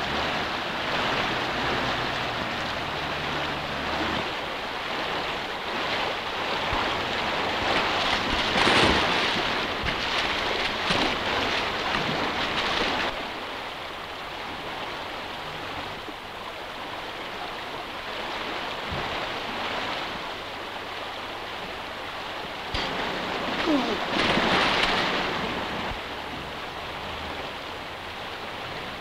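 Fast stream rushing over rocks, with a man splashing through the water. The rush swells louder twice, around the middle and again near the end.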